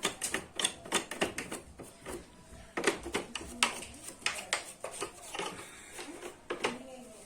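A brush scraping and ticking over the blades of a split AC indoor unit's blower fan, making quick, irregular clicks as dust is brushed off.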